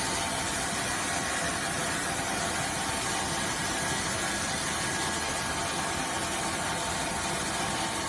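Small toilet-tissue band saw cutting machine running steadily: a constant hiss with a faint steady whine from its electric motor and blade.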